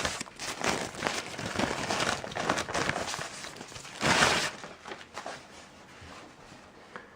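Packaging rustling and crinkling as a speaker is lifted out of its box and unwrapped. There is a louder rustle about four seconds in, then quieter handling.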